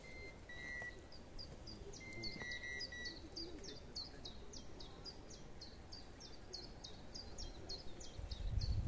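A small songbird repeating a short, high, downward-slurred note about three times a second. Wind rumble on the microphone swells up near the end.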